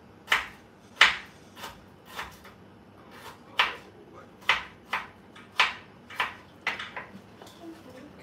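Knife chopping vegetables on a cutting board: about a dozen sharp knocks at uneven intervals, roughly two a second.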